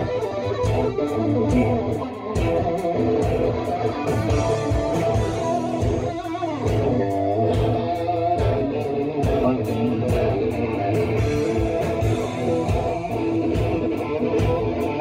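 Hard rock music without vocals: distorted electric guitars over bass and a steady drum beat. Around the middle a guitar note slides down and back up.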